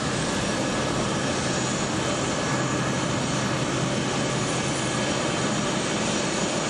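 C-17 Globemaster III's four Pratt & Whitney F117 turbofan engines running at taxi power: a steady jet roar with faint high whining tones over it.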